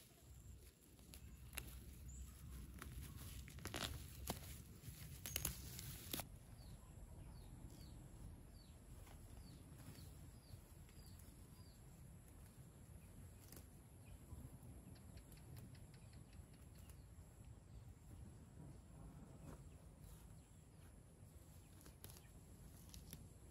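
Faint outdoor ambience. Light clicks and rustling come first. After an abrupt change about six seconds in, a quick run of about ten short, high, falling chirps follows from a small bird or insect.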